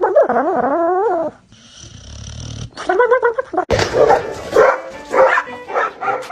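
A dog vocalising: a long call wavering up and down in pitch, then after a pause a string of shorter, rougher calls.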